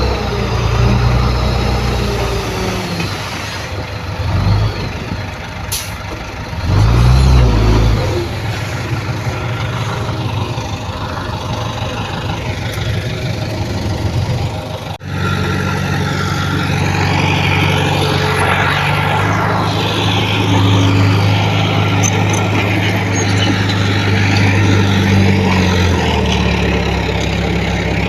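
Heavy diesel engines of a dump truck and bulldozer at work, the engine note rising and falling, with a brief high hiss about six seconds in. The sound breaks off abruptly about halfway through and the engines carry on steadily after it.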